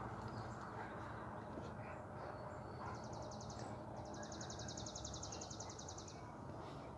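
A small bird's rapid, high trill, heard twice: a short burst about three seconds in, then a longer run of about two seconds. Steady outdoor background noise runs underneath.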